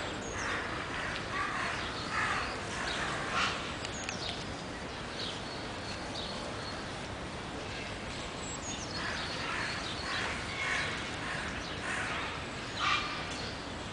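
Birds calling in short chirps, with a few thin high whistles that slide down in pitch, over a steady outdoor background hiss.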